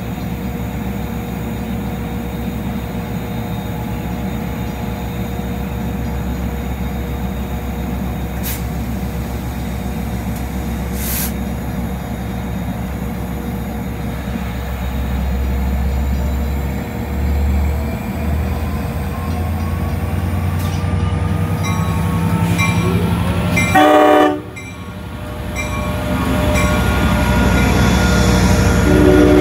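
Long Island Rail Road DE30AC diesel-electric locomotive idling at the platform with a steady low hum. From about two-thirds of the way in, a rising whine builds as the train starts off, and there is a short, loud horn blast just before the final few seconds. The engine sound then grows louder as the locomotive and bilevel coaches pull past.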